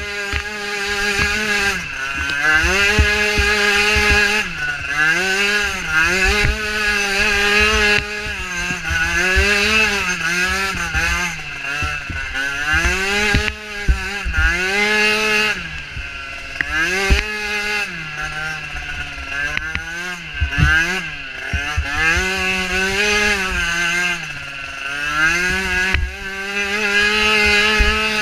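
Small micro ATV engine revving hard and easing off again and again, its pitch climbing and dropping about every second or two, with low knocks and rumble underneath.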